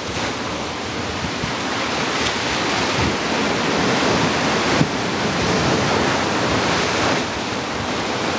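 Surf washing onto a sandy, rocky beach: a steady hiss of breaking waves that swells and eases slightly.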